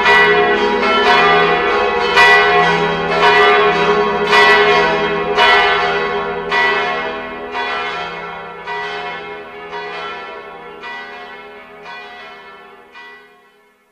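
Bells ringing, struck about once a second over a lingering hum of overlapping tones. The sound fades steadily and dies away near the end.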